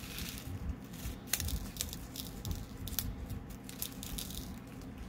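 Scattered light clicks and small rattles from handling diamond painting drills and their plastic container, over a low steady hum.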